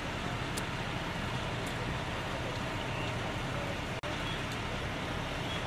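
Fire truck diesel engines running steadily at the scene: a constant low rumble under an even hiss, with a brief dropout about four seconds in.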